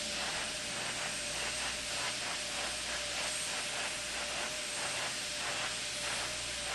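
Steady hiss with a faint steady hum: the background noise of the shuttle launch-countdown broadcast audio between callouts.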